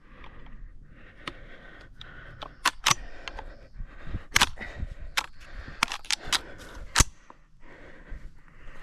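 A series of irregular sharp clicks and snaps, about fifteen, the loudest around four and a half and seven seconds in, over a faint steady hiss.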